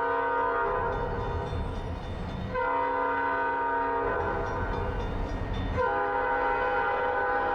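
Instrumental music: sustained chords with a horn-like, organ-like tone that change about every three seconds, over a low bass.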